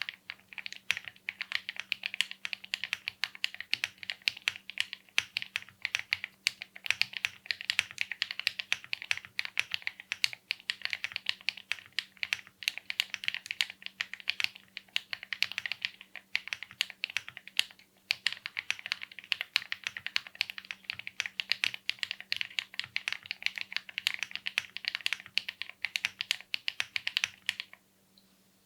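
Mechanical keyboard fitted with factory-lubed KTT Coconut Latte linear switches, typed on fast in a continuous stream of keystrokes that stops shortly before the end.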